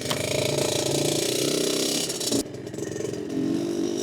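Dirt bike engine revving under throttle, then easing off about two and a half seconds in and running on more quietly.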